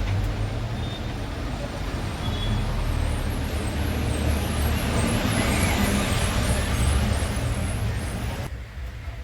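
A motor vehicle engine running steadily, then cut off abruptly near the end.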